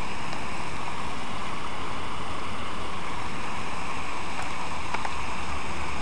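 Water cascading down a fountain's waterfall and splashing into its pool: a steady, even rush.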